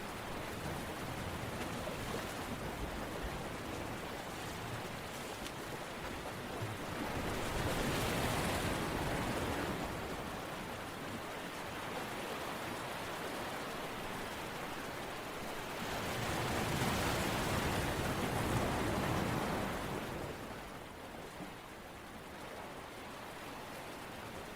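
Steady rushing noise of water, rising in two slow swells about nine seconds apart and easing off near the end.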